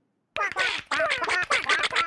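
Cartoon toy birds squawking together in a fast jumble of short, quack-like calls that rise and fall in pitch, starting about a third of a second in.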